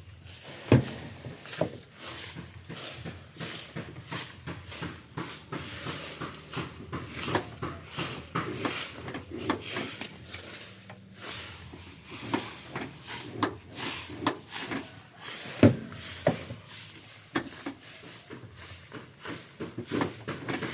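A run of irregular clicks and knocks, like hard objects being handled or tapped, with two sharper knocks, one about a second in and one near the sixteen-second mark.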